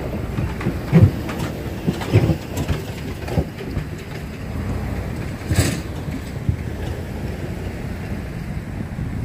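Wind buffeting the microphone in irregular low thumps, over the low rumble of a distant freight train approaching. A sharper knock comes just past the middle.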